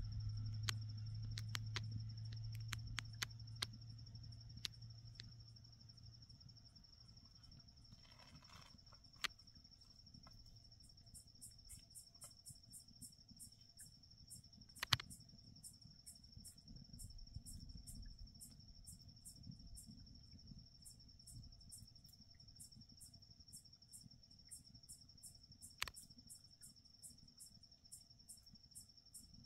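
Crickets trilling in one steady high note, joined about a third of the way in by an evenly repeating, higher ticking. Occasional sharp clicks stand out, and a low hum fades out in the first few seconds.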